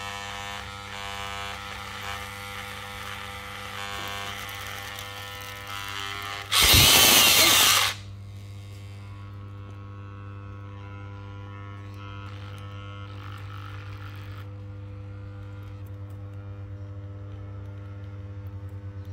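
Overloaded XU1 electric jigsaw motor running with a steady whine. About six and a half seconds in, a loud burst of noise lasting over a second as the motor fails and flames out of its vents. Afterwards only a steady low hum remains while the burnt-out tool smokes.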